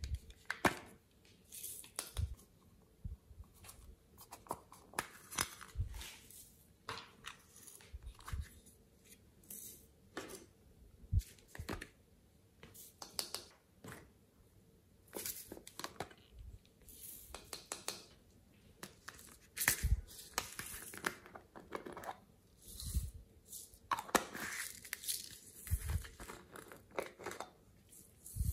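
Small plastic rainbow-shaped glitter containers handled, opened and shaken out over a dish of slime: irregular plastic crackles and clicks with a few light knocks.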